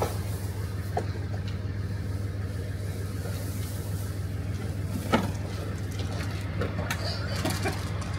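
Tractor engine running steadily, with a couple of short knocks as the loader works the bedding, the loudest about five seconds in.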